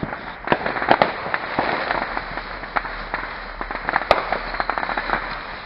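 A consumer ground firework going off and spraying sparks, with a rapid, irregular string of sharp crackles and pops. One louder, sharper crack comes about four seconds in.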